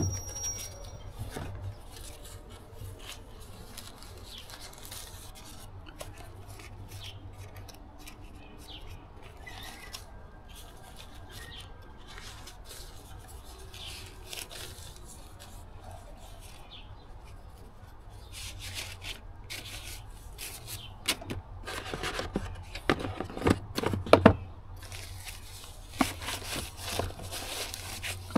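Rustling and crinkling of a white packaging bag being handled as electronics are repacked into their box, with scattered taps and clicks. The handling is sparse at first and gets busier and louder in the last third, over a low steady rumble.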